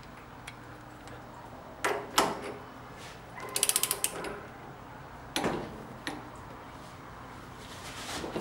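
A socket wrench ratchet clicking in a quick run about three and a half seconds in, with a few metal knocks before and after, as a socket and torque wrench are fitted to a steering rack's adjuster plug to set its preload.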